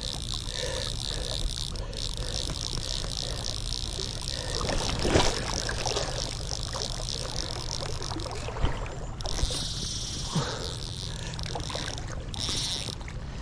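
Fly reel's ratchet clicking in a fast run of ticks as line is wound in on a hooked trout running towards the angler, over a steady rumble of river water and wind. The ticking stops abruptly partway through and comes back in short bursts near the end, with a single knock about five seconds in.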